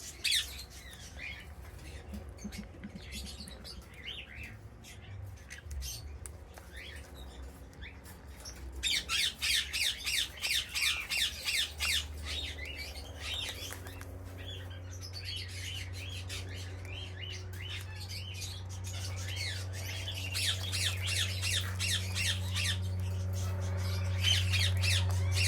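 Birds squawking in quick runs of harsh calls, with a dense burst about a third of the way in and another near the end. A low steady hum grows underneath from about halfway.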